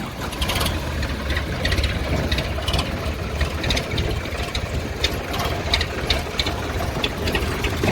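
Heavy diesel engine of a tractor or backhoe running steadily, with irregular metallic clanks and rattles over its low rumble.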